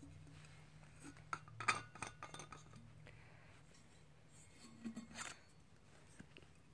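Stainless steel screw cap of a S'well bottle being unscrewed and taken off: a cluster of small metallic clicks and scrapes about a second in, then a shorter burst of clinks and handling near five seconds.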